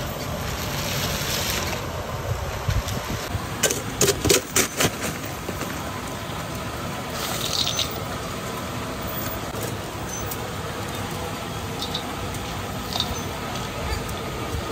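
Crushed ice tipped from one stainless steel bowl onto squid in another, clattering in a short burst about four seconds in, after the rustle of a plastic bag being handled; a steady low rumble runs underneath.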